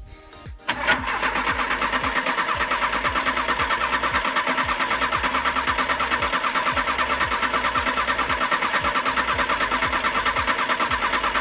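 VW AP 1.6 engine turning over on its starter motor with the ignition coil disconnected, so it cranks steadily without firing, in even pulses about five a second; the cranking begins about a second in. It is being cranked to pump oil up to the hydraulic lifters, with the oil pressure slow to build.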